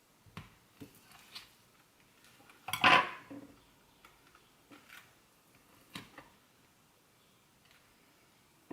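Kitchen clatter of dishes and cutlery: a handful of light clinks and knocks, with one louder clatter about three seconds in.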